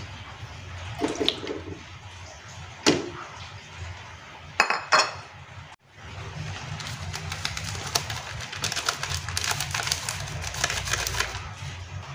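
Pieces of raw beef lung dropped into a non-stick wok, with a few knocks in the first half. In the second half comes a dense crackling for several seconds as a sachet of instant seasoning is emptied over the meat.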